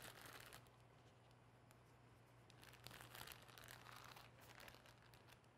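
Faint crinkling and rustling of a plastic zip-top bag as gloved hands knead the marinating fish fillets inside it, once at the start and again from about halfway on.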